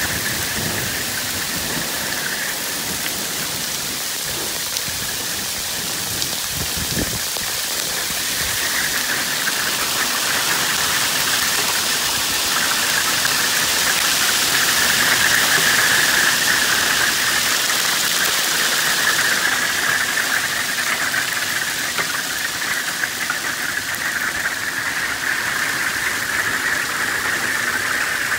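Heavy hail pelting down on the truck camper and the pavement around it, heard from inside the camper: a dense, steady hiss of hailstones that swells to its loudest about halfway through and eases slightly after.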